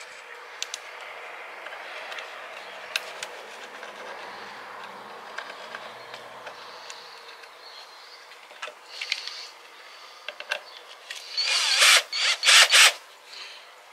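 A power drill running in several short bursts in wood near the end, after scattered clicks and knocks of workshop handling.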